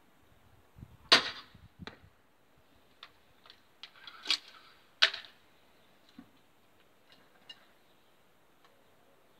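EK Archery Cobra R9 pistol crossbow with a 110 lb bow firing about a second in: one sharp, loud snap, followed under a second later by a duller knock. Then a run of mechanical clicks with two more sharp snaps around four and five seconds in as the crossbow is worked, and a few faint clicks near the end.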